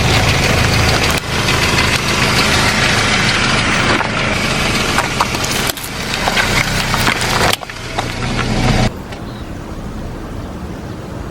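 A car tyre rolling over and crushing crunchy objects: a dense crackling and snapping over the low, steady run of the car's engine. It changes abruptly several times and falls quieter about nine seconds in.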